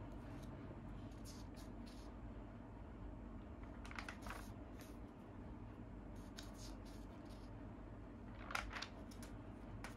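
Comic magazine pages being turned by hand: short papery rustles and flaps, a cluster about four seconds in and the loudest one near the end, over a faint steady low hum.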